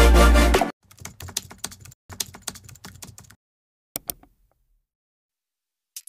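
Loud electronic music cuts off, then a computer-keyboard typing sound effect: a rapid run of keystrokes for about two and a half seconds, two more clicks a second later, and another quick run of ticks starting right at the end.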